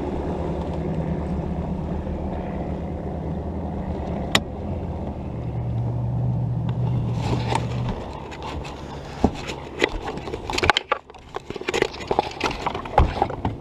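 Bass boat's outboard motor running steadily, its pitch stepping up about five seconds in as it is throttled up. After about eight seconds the engine tone fades under irregular knocks and rushing noise.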